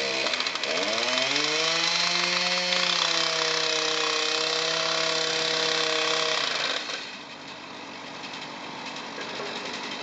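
Small engine-driven power tool on the track speeding up over about a second, running at a steady high speed, then cutting off abruptly about seven seconds in.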